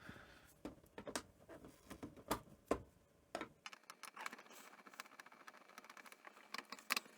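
Scattered light clicks and taps of plastic and rubber parts being handled as the door of a Sony Betamax SL-C5 video recorder is worked loose by hand.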